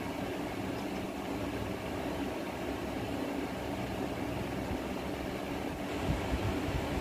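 Steady mechanical hum of a machine running in the room, with a few low thumps about six seconds in.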